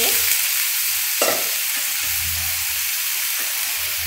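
Beef liver and cubed potatoes sizzling in oil in an aluminium karai, a steady frying hiss, with a single knock about a second in.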